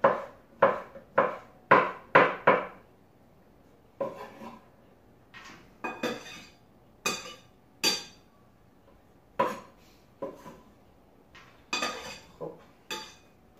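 Kitchen knife chopping boiled carrot on a wooden cutting board, a quick run of chops about two a second that stops about three seconds in. After that come scattered knocks and clinks as the diced carrot is scraped off the board into a bowl with the knife.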